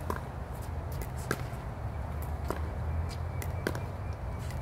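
Pickleball paddles hitting a plastic pickleball: several sharp pops at uneven intervals, over a steady low rumble.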